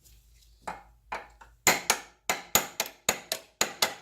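Hammer striking a metal fuel filter bracket to drive it into place: a couple of light taps, then from about a second and a half in a steady run of sharp, ringing strikes, about four a second.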